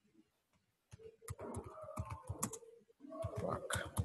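Keys tapping on a computer keyboard as a short phrase is typed, in two quick runs of keystrokes with a short pause between them, starting about a second in.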